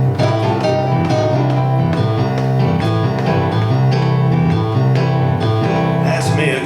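Instrumental music: a tune of quick changing notes over a steady bass line.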